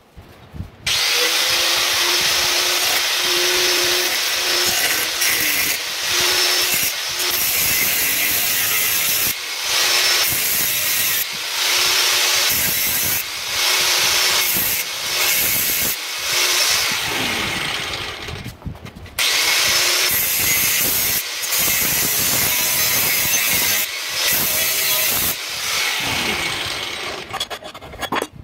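Handheld angle grinder running under load against a metal bar clamped in a bench vise: a loud grinding noise over a steady motor whine, broken by short dips every second or two. It starts about a second in and stops just before the end.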